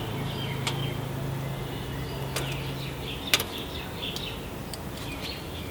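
A few light clicks and knocks as the loosened headlight is handled and drawn out of its shell, the sharpest a little past halfway. A steady low hum stops about three seconds in, and faint bird chirps sound in the background.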